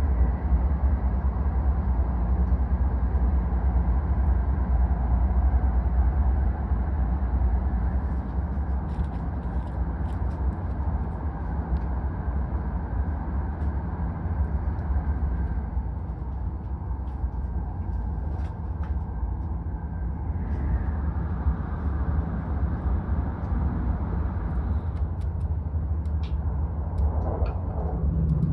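Steady low rumble of a Shinkansen bullet train running at speed, heard inside the passenger cabin. A few faint clicks and taps sound over it.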